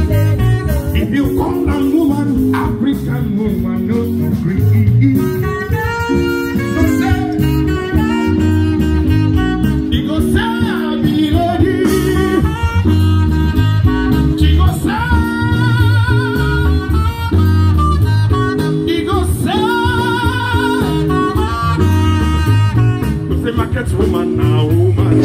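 Music: a song with a singing voice over a steady, repeating bass beat.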